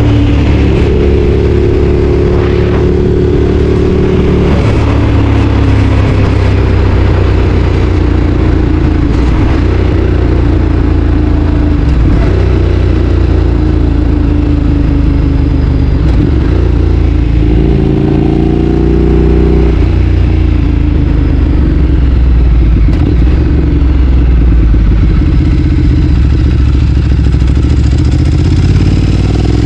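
Ducati Streetfighter 848's 849 cc L-twin engine running under way, its pitch stepping up as the throttle opens about a second in and again a little past halfway, and slowly falling in between as it eases off.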